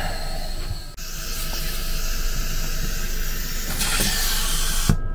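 Air hissing through a leaking vacuum breaker in a railway carriage's vacuum system while the vacuum pump runs. The breaker is not closing at all. The hiss grows brighter about a second in and cuts off suddenly near the end.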